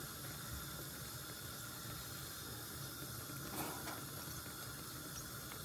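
Faint, steady hiss of a wool dye bath heating in a stainless steel tray on the stove, with a couple of soft clicks of metal tongs moving the fibre about three and a half seconds in.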